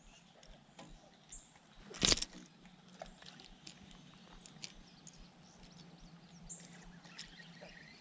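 Faint handling noises as a hooked largemouth bass is unhooked by hand, with one short, sharp noise about two seconds in and scattered small ticks.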